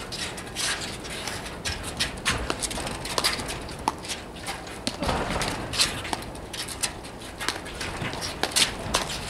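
Platform tennis rally: paddles knocking the ball back and forth, with players' shoes stepping and scuffing on the court deck, making irregular sharp knocks and scrapes several times a second.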